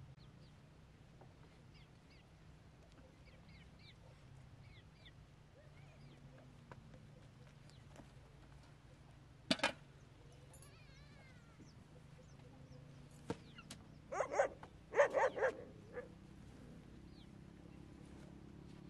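An animal calling: one sharp cry about halfway in, then a short run of loud calls near the end, over a quiet background with faint chirps.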